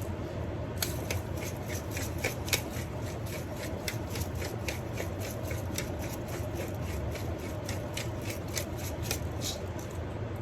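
Hand-twisted pepper mill grinding black pepper: a quick run of dry crackling clicks, about three or four a second, starting about a second in and stopping near the end.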